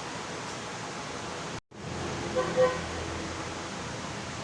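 Steady background hiss with a brief total dropout about a second and a half in, followed by a faint short pitched tone a second later, like a distant vehicle horn.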